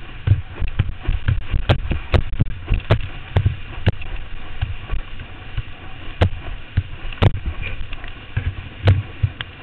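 Wind buffeting a helmet-mounted camera's microphone while kneeboarding at speed behind a boat, with rushing water and spray and irregular sharp knocks as the board rides over the chop.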